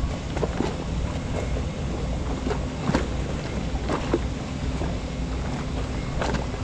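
Wind buffeting the microphone over a steady low engine hum, with a few short sharp clicks or knocks scattered through.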